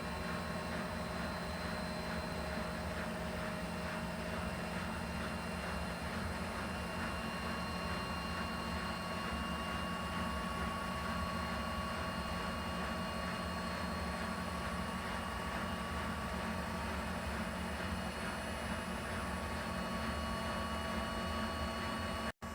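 Bosch WAK20260 front-loading washing machine on its spin-only program, the drum spinning at a steady speed: a constant low drone with a steady whine over it. The sound cuts out for an instant near the end.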